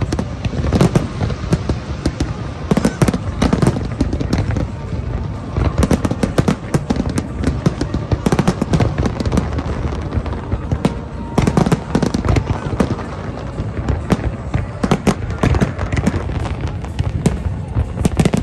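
Large aerial fireworks display: shells bursting in a dense, continuous barrage of bangs, many a second with no let-up.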